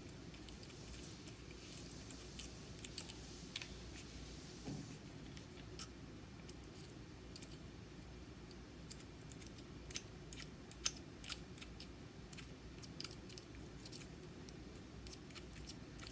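Faint, irregular small clicks and scrapes of hand tools working at the casing of a Wowstick cordless precision screwdriver as it is pried open, with a few sharper clicks about ten seconds in.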